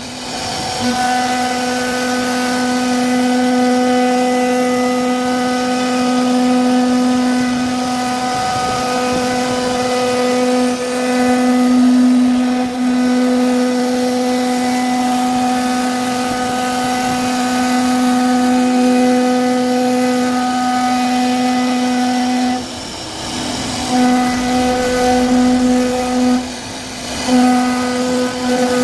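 CNC router spindle carving an MDF board: a steady, high machine whine with a noisy cutting hiss. It breaks off briefly a few times.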